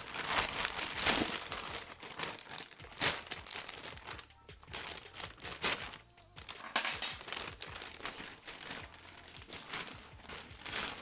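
Packaging crinkling and rustling in irregular bursts as a shipping package is opened by hand.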